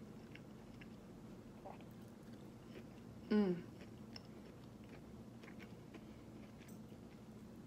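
Quiet chewing of chicken nuggets and fries, with small scattered mouth clicks, and one brief 'mm' from the voice, falling in pitch, about three seconds in.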